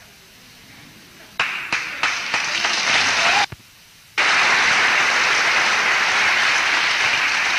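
Audience applauding, starting about a second and a half in; it cuts out briefly a little past the middle, then comes back loud and steady.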